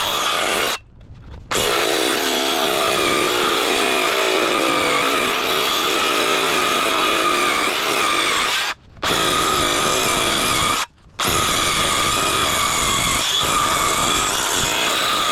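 Electric saw cutting through a wood board, running steadily with a whine and cutting out briefly three times, once about a second in and twice about two-thirds of the way through. The blade is cutting badly, which the roofer takes to mean it was dulled by something it chopped earlier.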